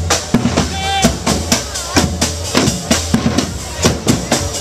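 Street drumming troupe playing a fast, driving rhythm on snare and bass drums, sharp strikes several times a second over a heavy low beat.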